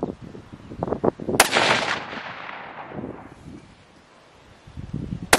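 .308 Winchester rifle firing handloaded 150-grain Barnes TSX rounds: one loud shot about a second and a half in, with a short echo trailing off, and a second shot at the very end.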